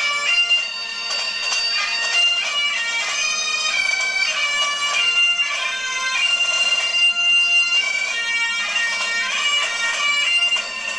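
Scottish bagpipe tune playing as a phone ringtone through the phone's speaker: a steady drone under a melody of held and quickly ornamented notes.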